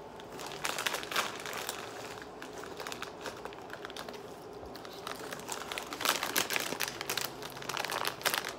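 A crisp packet crinkling and rustling as it is handled and passed from hand to hand, in irregular bursts, loudest about six seconds in.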